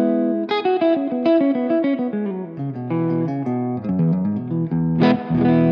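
Clean electric guitar from a 1976 Gibson ES-335 through an Xotic RC Boost and Strymon Flint reverb. A chord, then a quick run of single notes stepping downward, then a chord struck near the end and left ringing.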